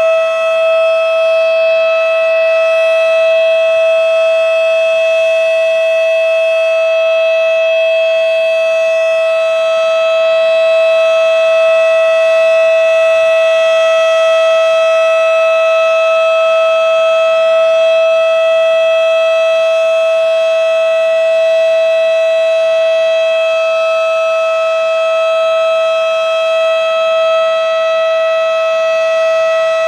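Federal Signal Model 7 single-tone chopper siren sounding its steady Alert signal: one loud tone held at a constant pitch, with no rise or fall.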